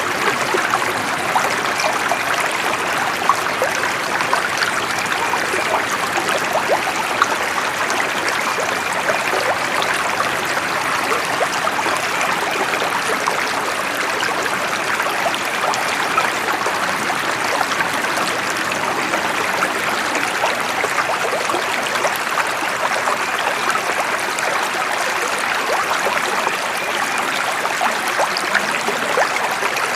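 Running water of a stream, a steady babble of many tiny splashes and trickles.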